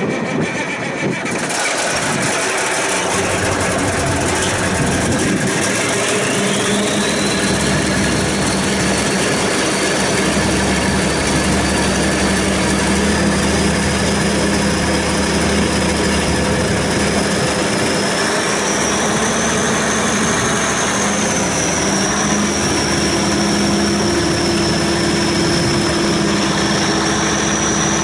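The diesel engine of a Versatile 895 articulated tractor catches right after being started, then settles into a steady run. A high whine rises about five seconds in and then holds.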